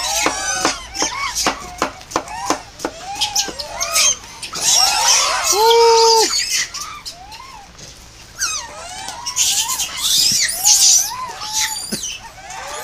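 A troop of macaques calling over one another with many short rising-and-falling squeaks and chirps. Shrill screaming breaks out about five seconds in and again near ten seconds as they scuffle over thrown food, with one steady held call about six seconds in.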